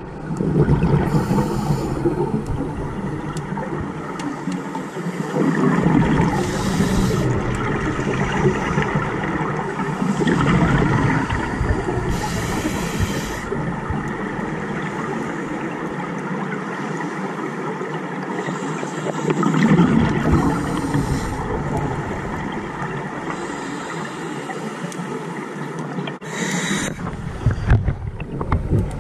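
Scuba diver breathing through a regulator underwater: a short hiss on each inhalation about every five or six seconds, followed by the gurgle of exhaled bubbles.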